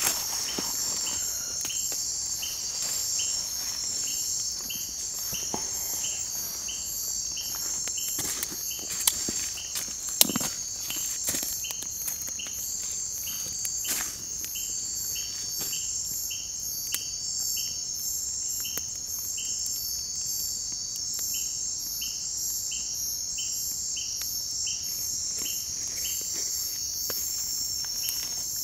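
Chorus of night insects: a steady high trill with a short chirp repeating about twice a second. A few sharp clicks and cracks stand out near the middle.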